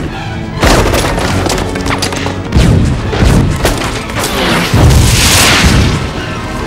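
Action film soundtrack: dramatic score under repeated heavy booms and crashing rumble, a loud rushing surge about five seconds in, as an avalanche comes down.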